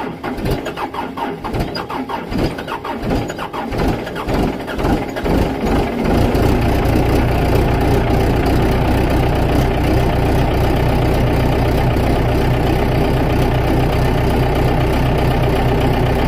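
Case 60XT skid steer's diesel engine cranking over in the cold with a rhythmic pulsing for about six seconds, then catching and running at a steady idle. This is a cold start at about minus 3, which this engine is known to struggle with.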